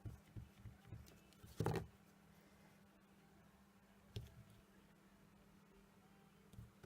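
A few soft taps and knocks of stamping supplies, an acrylic block and ink pad, being handled on a desk, the loudest about two seconds in; otherwise quiet room tone.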